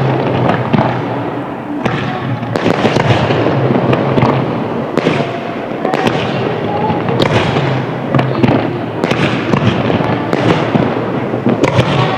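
Aerial fireworks shells bursting in a dense, unbroken run, one boom following another every second or so, with crackling between them.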